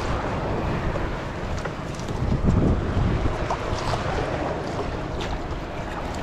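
Wind buffeting the microphone over water splashing against a small boat's hull, with a louder surge about two and a half seconds in. A few faint ticks come through from a nylon gill net being handled.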